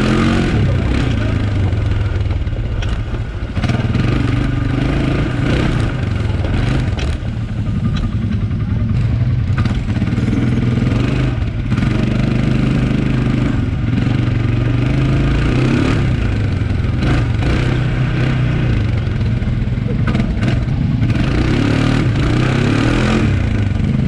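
ATV (quad bike) engine running steadily under way on a bumpy dirt trail, with scattered knocks and rattles from the ride.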